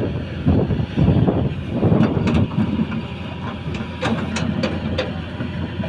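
Excavator engine running with a steady low hum, with rough grinding surges in the first couple of seconds and then a series of sharp clacks, like rock or steel striking.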